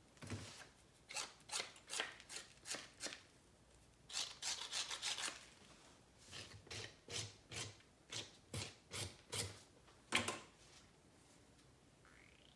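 A hand tool scratching and rasping across clay in short strokes, about two or three a second, with a quicker flurry a few seconds in and a short pause before the strokes resume.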